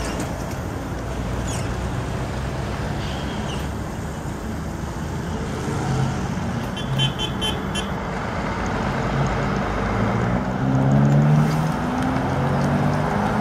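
Street traffic noise as a Kyiv-12.05 trolleybus drives along the road. From about nine seconds in, a low whine rises in pitch. There is a short burst of rapid high beeps about seven seconds in.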